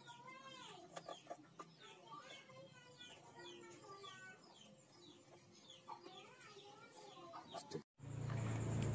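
Chickens clucking and birds chirping in many short, overlapping calls, with no work sound over them. About eight seconds in, the sound cuts off sharply and a louder steady low hum with a thin high tone takes over.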